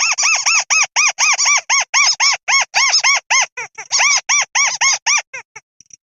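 A rail's squeaky call: a fast series of short notes, about four a second, each rising and falling in pitch, breaking off into a few weaker notes near the end. It is a lure call for rice-field rails (tikusan).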